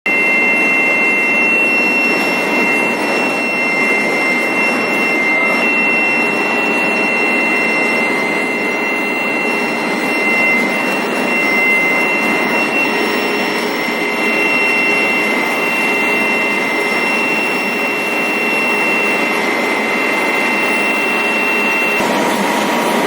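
Industrial heat-treatment furnace equipment running: a loud steady rushing noise with two high whining tones over it. About 22 seconds in, the upper whine stops and a lower tone takes over.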